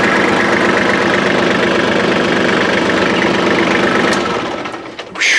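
Kubota tractor's diesel engine running steadily, then fading out about four seconds in.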